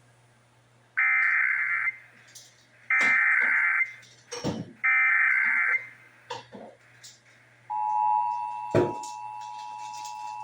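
Emergency Alert System SAME header: three one-second bursts of buzzing digital data tones about a second apart. The steady two-tone EAS attention signal follows and holds, with a click just after it starts.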